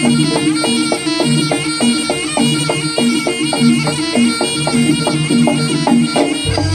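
Jaranan senterewe music: a piercing, reedy slompret (Javanese shawm) melody over steady gong-chime and drum strokes at about four a second. A deep low swell comes in near the end.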